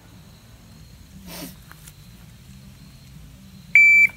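Shot timer's start beep: one loud, steady, high-pitched beep about a third of a second long near the end, signalling the start of a timed pistol draw.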